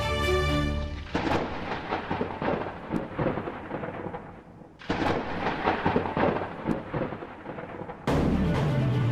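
Two crackling thunderclaps, each rolling on for about three seconds and fading away, the second striking just as the first dies. Music stops about a second in and comes back near the end.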